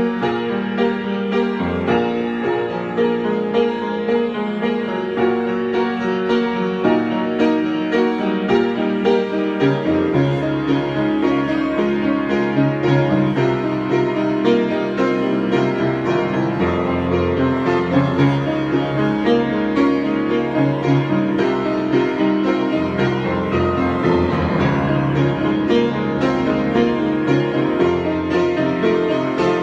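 Piano playing a continuous improvised passage of many notes. Lower bass notes come in more strongly about a third of the way through.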